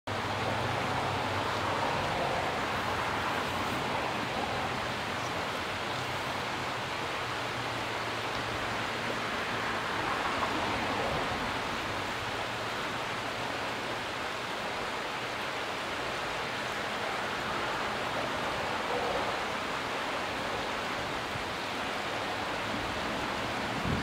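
Shallow creek water flowing over a rocky riffle: a steady, even rush of water that does not change.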